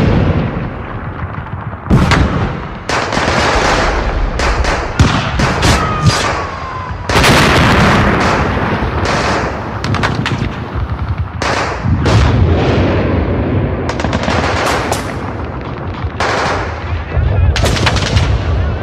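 Battle sound effects: rapid bursts of gunfire and heavy booms, loud throughout, with shots coming in clusters and dense noise between them.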